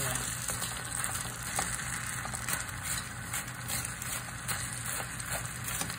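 Frozen shrimp fried rice sizzling steadily in hot oil in a pan, with a few faint scrapes and taps of a plastic spatula pressing and turning it.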